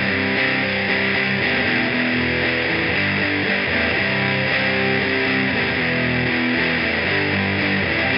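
Electric guitar played through a distortion pedal, strumming a heavy riff of sustained chords that change every second or so.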